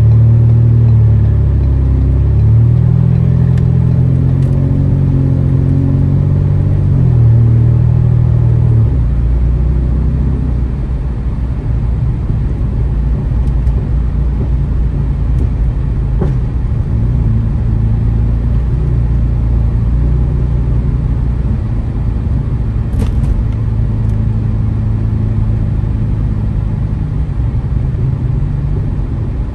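Catless, straight-piped 2015 Ford Taurus engine and exhaust running under way. Its low drone changes pitch in steps over the first nine seconds, then settles into a steady cruising rumble with road noise.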